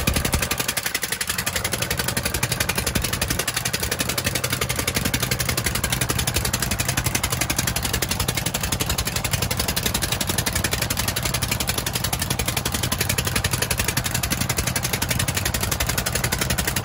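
Engine of a wooden outrigger fishing boat running steadily under way, a fast, even beat, with the wake rushing along the hull.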